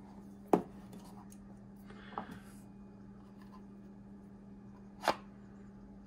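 Small handling sounds from a waiter's corkscrew and its leather holster: a sharp click about half a second in, a brief rustle with a faint tick near two seconds, and another sharp click about five seconds in as the corkscrew is seated in the holster. A steady hum runs underneath.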